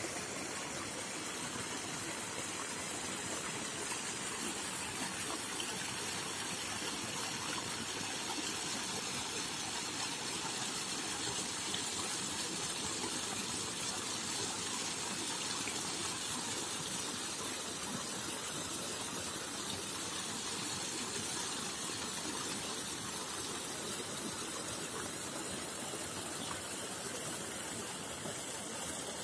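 Steady rush of water gushing from a tube-well's irrigation pipe and splashing into an earthen field channel as the field is flooded.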